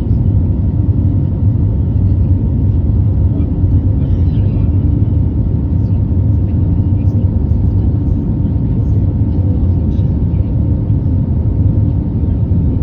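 Airliner cabin noise during the climb after take-off: a steady, low rumble of jet engines and airflow that does not change.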